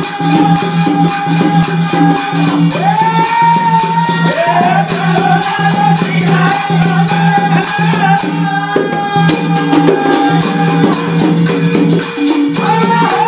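Bhajan music: hand-held tambourines struck and shaken in a steady rhythm of about three beats a second over a long held high note, with a singing voice gliding in around three seconds in and again near the end.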